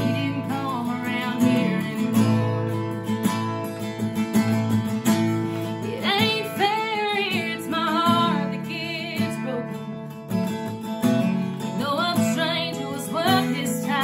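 A woman singing while strumming an acoustic guitar. The vocal phrases are strongest around the middle and again near the end, some held with vibrato, over steady strummed chords.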